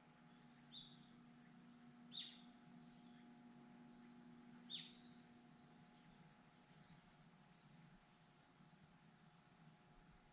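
Near silence with faint natural sounds: a bird gives a handful of short, high, downward-sliding chirps over the first five seconds, over a steady high-pitched insect drone.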